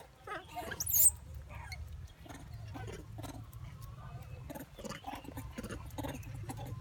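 Short high squeaks from a baby pigtail macaque, the loudest a sharp rising squeak about a second in, amid light scuffling and tapping.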